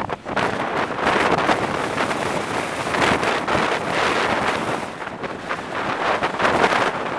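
Wind buffeting the microphone over the rush of heavy surf breaking on the beach, the noise swelling and easing in gusts.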